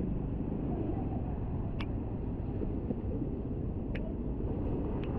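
Steady engine and road noise from a motorcycle riding through rainwater on a flooded road, with a few faint ticks.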